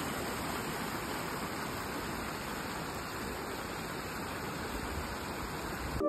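Fast, shallow mountain stream below a waterfall, rushing over rocks with a steady, even rush of water.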